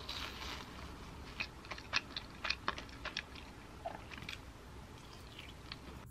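A person chewing crunchy food close to the microphone: a run of sharp, crisp crunches through the middle, then quieter chewing.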